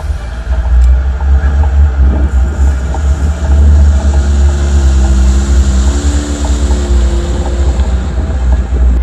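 Lada Niva 4x4's engine running under load as it drives through mud, its revs wavering and climbing in the middle, over a heavy low rumble.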